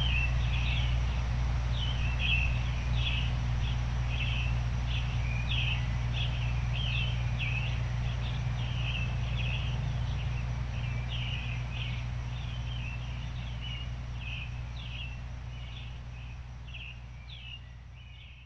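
Small songbirds chirping in quick, repeated short notes over a steady low noise bed, the whole mix fading out gradually toward the end.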